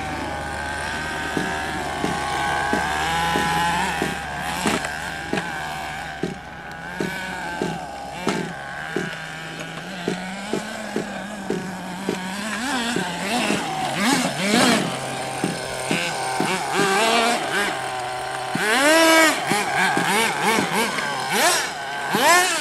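Small engines of radio-controlled monster trucks running and revving up and down as the trucks drive over dirt, with rising and falling whines that grow stronger near the end.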